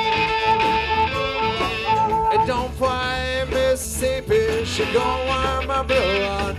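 Live blues band playing an instrumental break, a lead electric guitar holding long notes and bending them up and down over the bass and drums.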